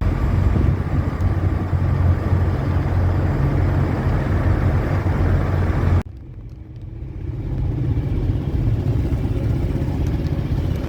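Semi truck under way pulling a loaded trailer: steady engine drone and road noise. About six seconds in the sound drops off suddenly, then the lower rumble builds back up.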